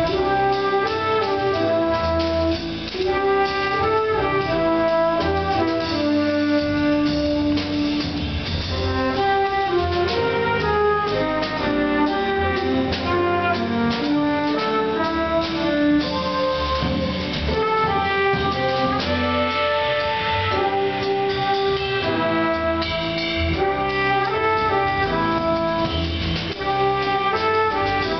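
Small jazz combo playing live: trumpet and saxophones playing the melody together over piano, double bass, guitar and drum kit.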